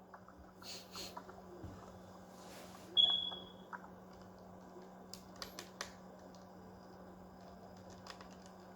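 Scattered clicks of computer keys being typed, with a short high beep about three seconds in, over a steady low hum.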